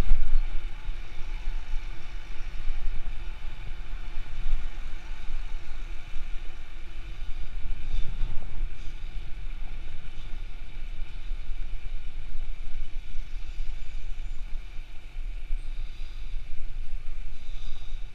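Wind buffeting the microphone of a bicycle-mounted action camera while riding, over a steady rush of tyre and street traffic noise.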